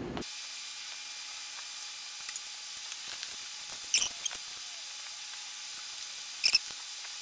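A few light clicks and rustles as a long sleeping-bag zipper is handled and laid out on fabric on a workbench, over a faint steady hiss. The sharpest clicks come about four seconds in and again near the end.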